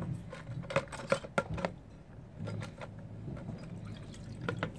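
A few sharp clicks and knocks as a GY6 scooter engine cylinder is dipped into a plastic tub of gasoline and bumps against the tub. They come mostly in the first second and a half and again near the end, over a low steady hum.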